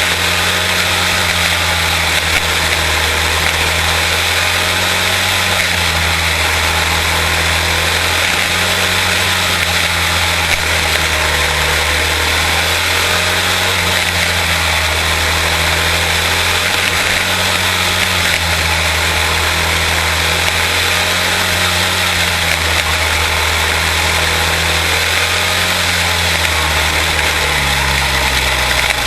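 Quarter midget race cars' small single-cylinder Briggs & Stratton Animal engines running at racing speed, a steady drone whose pitch rises and dips slightly every few seconds as the cars lap the track.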